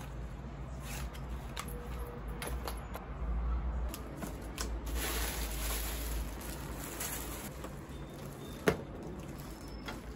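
Plastic packaging rustling and crinkling as products are unboxed by hand, with scattered small clicks and taps and a longer rustle about halfway through as an air-cushion bag is pulled out. One sharp knock stands out near the end.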